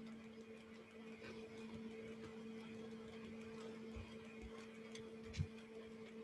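Quiet room tone with a steady electrical hum and faint hiss, a few faint ticks, and a small knock a little after five seconds in.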